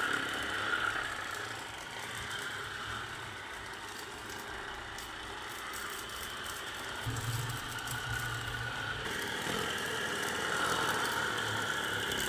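Ceragem thermal massage bed running: a steady mechanical whir with a light rattle over a low hum, the hum swelling for a couple of seconds past the middle.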